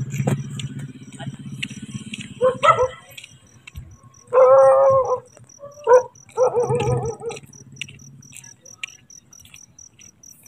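A dog barks four times, one bark drawn out for about a second. A cricket chirps in a fast, even pulse through the second half. A low rumble fades out over the first few seconds.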